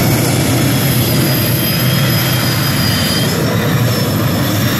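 Competition pulling tractor's engine running loud and steady with a high whine, which starts to fall in pitch near the end.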